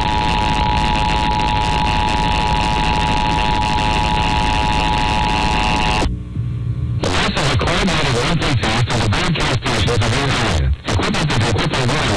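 FM broadcast of an Emergency Alert System monthly test: a steady electronic tone over hiss, cut off abruptly about six seconds in. After a brief drop, the station's regular programme audio, music and voices, resumes.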